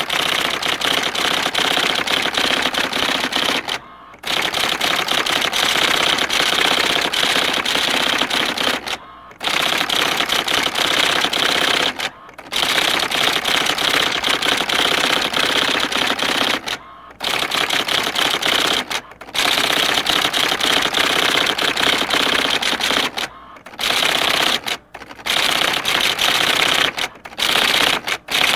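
Printer running in passes of dense, rapid mechanical clatter, each a few seconds long. The passes are broken by short pauses, which come more often near the end.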